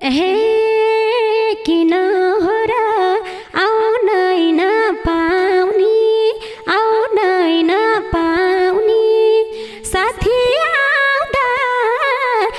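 A woman's unaccompanied solo melody, made at the mouth with her hand cupped over it and close to a microphone. The notes slide and waver from one to the next, in short phrases with brief breaks between them.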